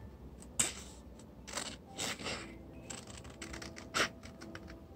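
Scissors snipping through printed A4 paper, a handful of short crisp cuts with paper rustling between them as a box template is cut out along its lines.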